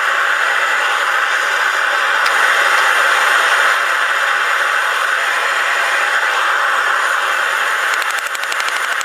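Propane forge burner running with a steady rushing hiss. About eight seconds in, rapid hammer blows on the hot railroad spike at the anvil start up again.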